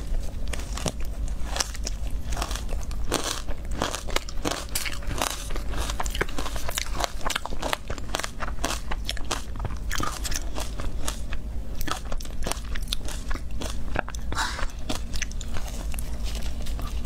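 Crunching and chewing of matcha-powdered ice, picked close by a clip-on microphone: a dense run of small crackles and crunches as she bites clumps and chews them, over a steady low hum.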